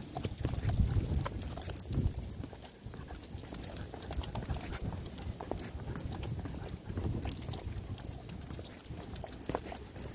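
Footsteps of a person walking with dogs, uneven steps and scattered light clicks over a low rumble.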